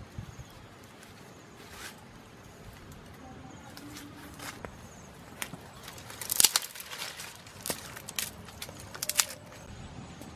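Small wood fire and embers under skewered quail crackling and popping in scattered sharp snaps. The loudest cluster of pops comes about six and a half seconds in, and a few more come in the last few seconds.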